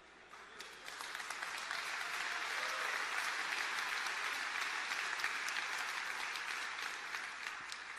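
A large audience applauding, a dense patter of many hands clapping that builds up over the first second or so and tapers off near the end.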